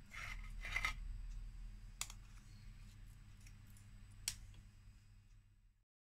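Metal spoons scraping and clicking against each other while scooping batter into frying oil, with two sharp clicks about two and four seconds in, over a faint steady low hum. The sound cuts off just before the end.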